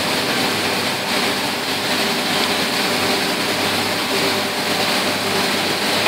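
Semi-automatic glass bottle washing machine running steadily: a low motor hum under an even hiss.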